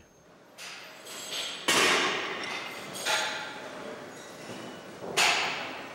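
Metal gym weights clanking: four sharp hits spread over several seconds, each ringing out briefly. The second, a little under two seconds in, is the loudest.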